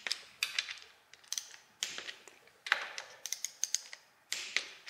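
Click-type torque wrench set to 15 ft-lb clicking off on the oil pump and water pump bolts of a Toyota 2JZ engine, with the clink of the socket being fitted onto each bolt head. A series of short, sharp metallic clicks, closest together a little past the halfway point.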